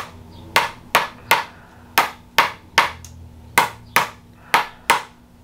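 Spring-loaded chiropractic adjusting instrument (activator) firing about ten sharp clicks in quick groups of two or three as it taps adjustments into the hip area.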